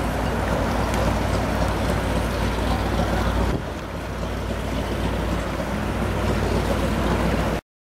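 Offshore racing powerboat running at speed across open water: a steady engine drone mixed with water and wind noise. The sound dips briefly about three and a half seconds in, then cuts off abruptly near the end.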